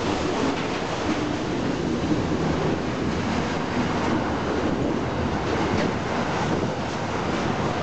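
Freight train wagons rolling past on the rails with a steady rumble and wheel noise, as the last of the train goes by.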